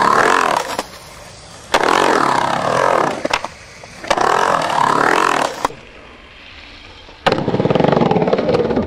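Skateboard wheels with a badly flat-spotted wheel rolling on concrete: a rapid rhythmic clatter whose pitch rises and falls with the board's speed. It comes in four loud stretches with quieter gaps between them, each stretch starting suddenly.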